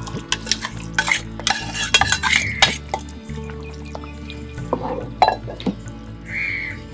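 Freshly ground masala scraped off a plate into a steaming vegetable curry in a heavy pot, then stirred in with a wooden spatula. Quick scrapes and knocks fill the first few seconds, and the stirring slows after that.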